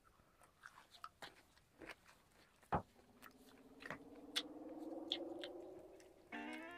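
Quiet chewing close to the microphone: a man eating roti with cauliflower curry, with soft mouth clicks scattered through it. A faint drawn-out tone rises slowly in the second half.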